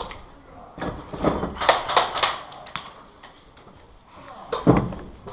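Footsteps crunching over broken concrete rubble, with a quick cluster of steps from about one to three seconds in and a single heavier thump near the end.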